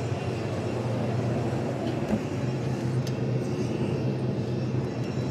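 A steady low mechanical hum with a faint knock about two seconds in.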